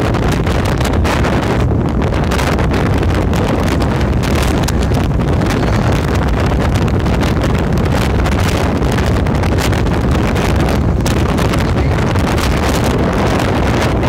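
Strong wind buffeting the microphone: a loud, steady low rumble with irregular gusts crackling through it.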